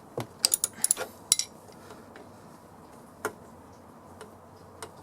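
Metal clinks of 13 mm spanners on a door check's nut and bolt as it is tightened and backed off. A quick run of sharp clicks comes in the first second and a half, then two single clicks later on.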